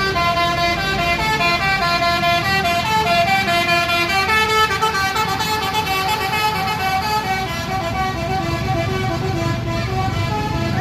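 An Agra Mas bus's telolet basuri horn playing a fast tune of stepped notes, over the low, steady running of the bus engine.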